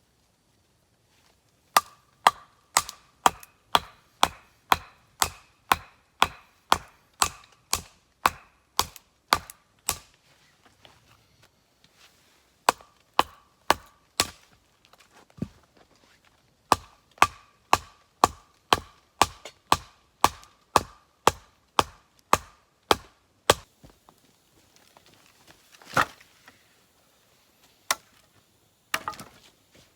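Rhythmic blows of a metal tool into wood, about two a second, each with a short metallic ring, in three runs broken by short pauses, then a few scattered knocks near the end.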